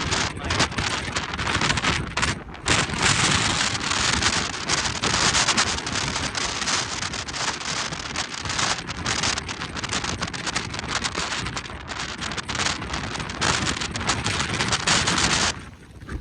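Heavy rain and strong wind in a tornadic thunderstorm, with a dense patter of drops and gusts buffeting the microphone. It drops away suddenly just before the end.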